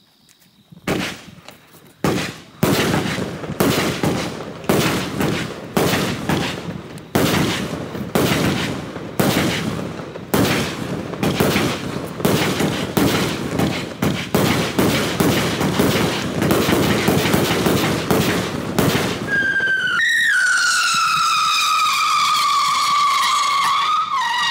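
Black Cat Flying Saucer 28-shot fireworks cake firing: a quick string of sharp shots and bursts, about one or two a second, with crackle between them. About nineteen seconds in the shots stop and a steady whistle takes over, slowly falling in pitch, as a whistling spinner flies.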